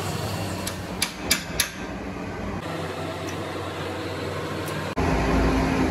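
A hammer tapping on a truck radiator's metal top tank around the filler neck: a few sharp taps about a second in, over a steady low hum that gets louder near the end.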